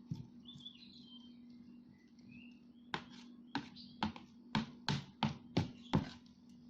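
Sticky homemade slime being worked by hand. In the second half it gives a run of about eight short sharp sticky clicks, roughly two a second, as the tacky slime pulls away.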